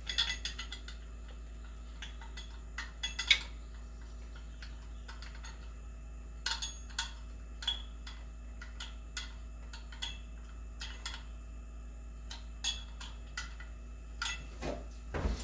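Small metal clicks and taps, scattered irregularly in short clusters, from hand tools and zone valve parts being handled while a twisted shaft seal is worked back off the valve, over a steady low hum.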